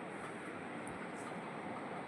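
Steady, faint background hiss with no distinct sound.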